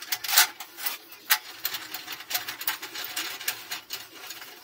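Irregular metallic clicks and light knocks from gloved hands working the vise clamp and threaded clamp rod of a homemade angle-grinder cut-off saw; the saw is not running.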